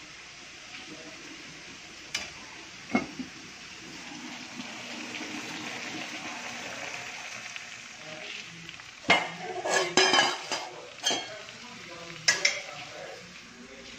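Cauliflower and carrots sizzling in a wok with a steady hiss. About two-thirds through comes a run of sharp metal clanks and scrapes, the spatula stirring against the wok, with a few more clanks shortly after.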